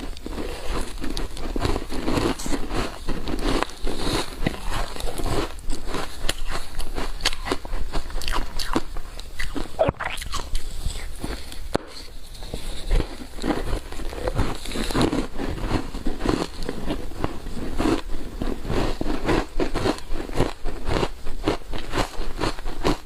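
Crunching and chewing of frozen matcha-powder ice: a dense, continuous run of sharp, crackly bites.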